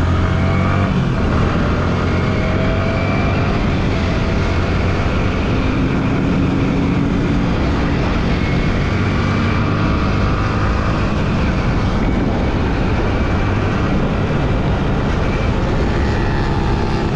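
Sport motorcycle engine running steadily while riding at speed, mixed with heavy wind noise on the microphone.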